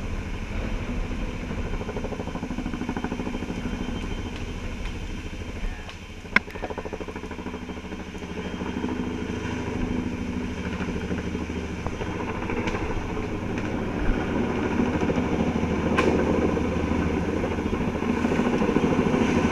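Helicopter hovering overhead with a log slung beneath it, its rotor noise steady, dipping briefly about six seconds in. A sharp click comes just after the dip, and another near the end.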